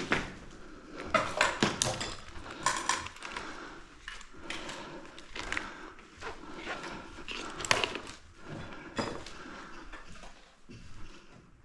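Irregular knocks, thuds and sharp clicks, a few every second or two, like footsteps and handled gear in a room.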